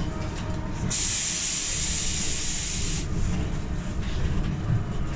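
Irisbus Cristalis ETB 18 trolleybus heard from inside, running with a steady low rumble. About a second in, a loud hiss of air lasts about two seconds, then cuts off.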